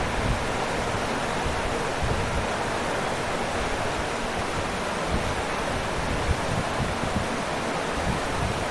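Waterfall: a steady, even rush of falling water with an uneven low rumble underneath.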